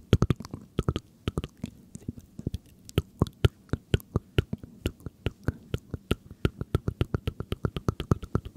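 ASMR mouth sounds close to the microphone: a quick series of wet tongue and lip clicks, getting faster to about eight a second and stopping abruptly at the end.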